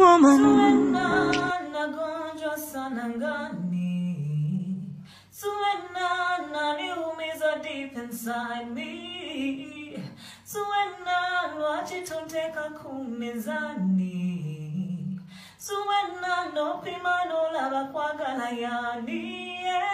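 A woman singing a cappella, one voice with no accompaniment, in long phrases broken by short pauses for breath.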